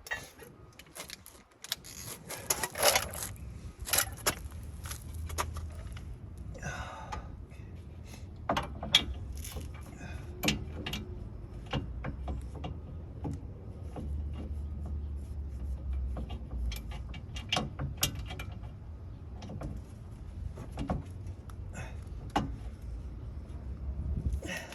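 Metal hand tools, sockets and wrench parts, clinking and clattering irregularly as they are handled, over a low rumble.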